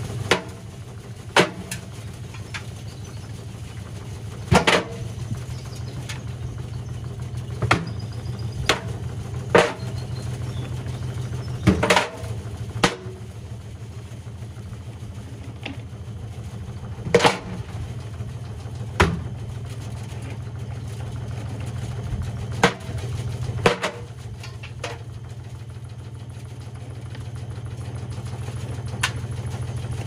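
Whirlpool front-loading washing machine tumbling a drum load of stones: a steady low hum from the running machine, broken by loud bangs every few seconds at uneven intervals as stones drop and strike the drum.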